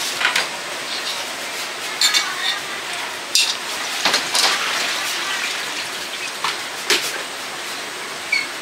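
Kitchen utensils and dishes clinking, a spoon knocking against containers, with several sharp clinks a second or so apart over a steady background hiss.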